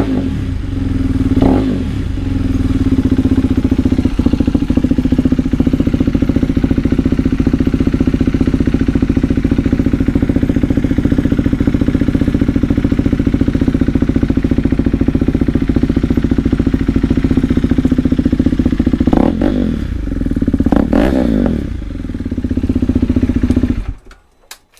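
KTM 390 Duke's single-cylinder engine idling loud through a slip-on exhaust with the baffle removed. The throttle is blipped briefly about a second and a half in, then twice near the end. The sound cuts off suddenly just before the end.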